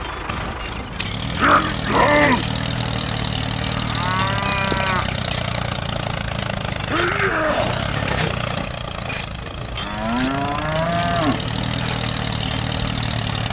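A cow mooing several times over the steady low drone of a tractor engine.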